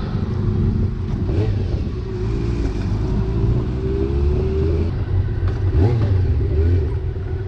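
Motorcycle engine running under way, a steady low drone with some gentle rises in pitch, mixed with wind rushing over the microphone.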